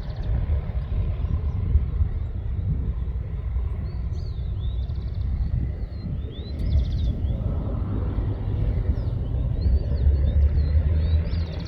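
Low, steady rumble of a Boeing 737-800's jet engines, with small birds chirping in short, repeated calls high above it.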